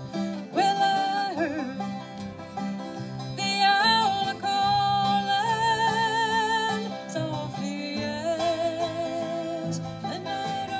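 Acoustic folk/bluegrass band playing an instrumental break between verses: banjo and acoustic guitars strumming, with a held melody line with vibrato on top.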